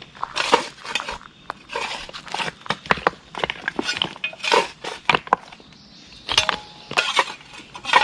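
Irregular crunching, scraping and clinking of dirt and stones being dug, in quick uneven strokes.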